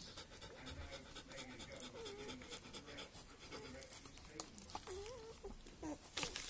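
Five-day-old Northern Inuit wolfdog puppies making short, wavering squeaks and snuffles while suckling from their mother, a call every second or so. A brief burst of noise comes near the end.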